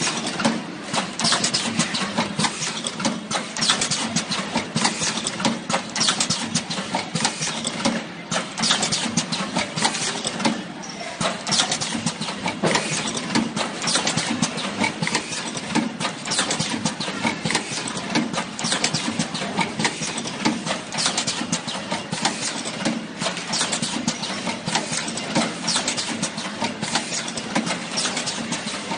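Automatic wire soldering-tin (tinning) machine running, with a steady hum under dense, irregular clicking and clattering that keeps on without a break.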